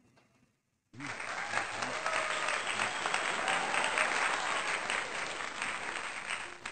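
Applause sound effect: a crowd clapping densely, starting abruptly about a second in and cutting off near the end.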